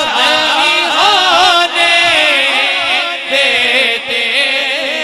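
A man's voice chanting a naat into a microphone, unaccompanied, in long drawn-out phrases that bend up and down in pitch.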